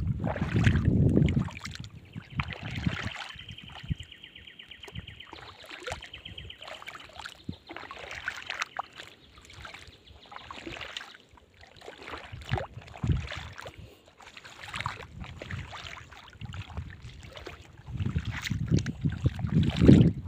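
Footsteps wading through shallow seawater: a string of soft splashes and sloshes, with wind rumbling on the microphone at the start and again near the end. A high, fast-pulsing buzz sounds for about four seconds from roughly two seconds in.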